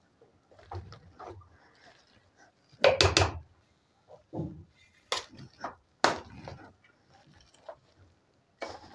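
Wire potato masher pressing boiled potatoes in an aluminium pot: irregular dull knocks and squishes as it strikes down, the loudest a double knock about three seconds in.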